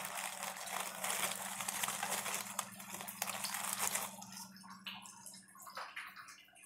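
Clear plastic packet crinkling and rustling as dried bay leaves are pulled out of it by hand, dying down to a few faint ticks after about four seconds. A faint steady hum runs underneath.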